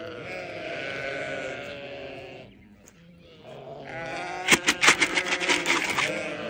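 Sheep bleating: one long, wavering bleat, then after a short pause a second, louder bleat.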